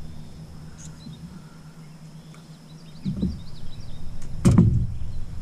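Bumps and knocks in a small aluminium jon boat as a largemouth bass is landed: a soft thump about three seconds in, then a sharp, louder knock about a second later, over a steady low hum.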